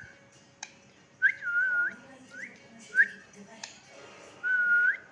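Pet rose-ringed parakeet whistling: about four clear whistles, some rising, levelling off and rising again, and one longer level whistle that turns up at its end near the close. Two sharp clicks fall between the whistles.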